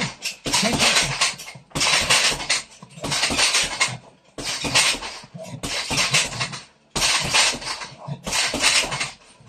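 Boxing gloves striking a hanging heavy bag in rapid flurries, about a second of fast punches at a time with short pauses between, with the bag's hanging chain rattling.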